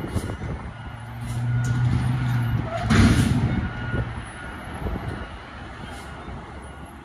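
Garbage truck engine revving and holding a steady higher note for about three seconds, then dropping back to idle. A short hiss of air brakes about three seconds in is the loudest moment.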